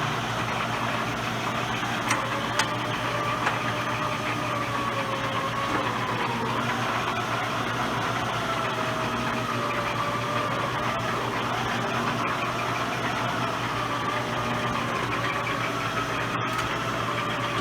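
Cincinnati 20-inch Standard metal-cutting shaper running under its 5 hp three-phase motor, the ram stroking back and forth at one of its four speeds. A steady machine running noise with a low hum and a wavering gear whine, with a few light clicks.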